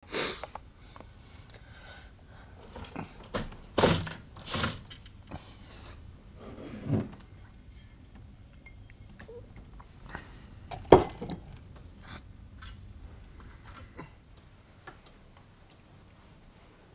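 Scattered knocks and rustles of objects being handled, with a cluster of thuds around four seconds in and the loudest sharp knock about eleven seconds in, growing quieter near the end.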